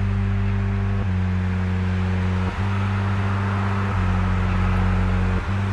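Background music: low sustained chords that change together about every one and a half seconds.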